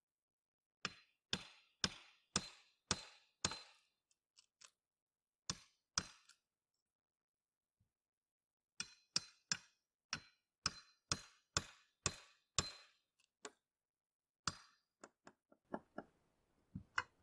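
Steel hammer striking metal, each blow with a short ringing tone, in runs of about two strikes a second separated by pauses, while roof battens are pried loose; lighter, quicker taps near the end.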